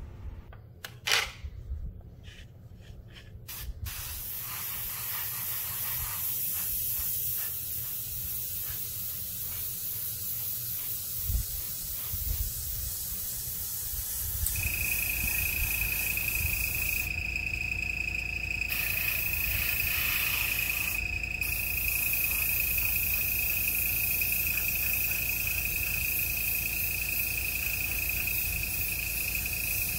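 Airbrush spraying acrylic paint: a steady hiss of air that breaks off briefly twice in the second half. About halfway through, a steady high whistle starts alongside the hiss and holds to the end. A few sharp clicks come in the first few seconds.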